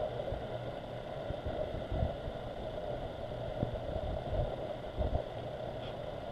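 A vehicle running steadily with an even hum, with scattered short low thumps.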